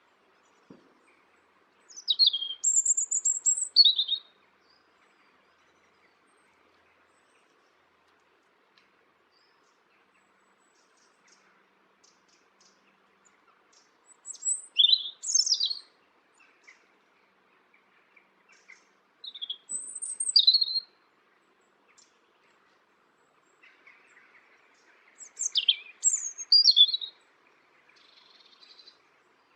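A songbird singing short, high-pitched phrases of quick gliding notes, four phrases with pauses of several seconds between them.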